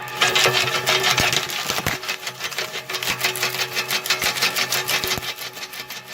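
Branch chipper shredding branches: a fast, even clatter over a steady machine hum.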